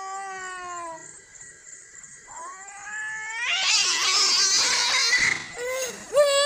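Two cats caterwauling in a standoff. A long wailing yowl falls in pitch and stops, then a rising yowl breaks into a loud harsh screech as one cat lunges, and shorter yowls follow near the end.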